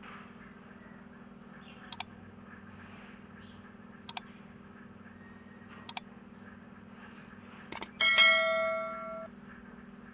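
A bell rings once, about eight seconds in, lasting just over a second before cutting off. Before it come pairs of sharp clicks about two seconds apart, over a steady low hum.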